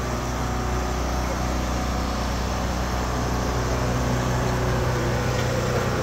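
An engine running steadily with a low hum, with no change in speed.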